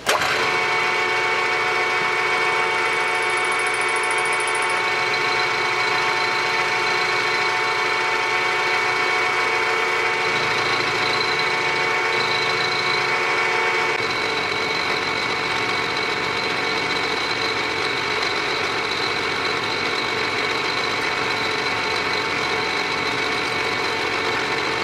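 Milling spindle of a 3-in-1 lathe-mill machine starting up and running steadily, a whining gear-driven hum with several steady tones, during a milling pass on a chuck backing plate's recess. Its tone shifts slightly about halfway through.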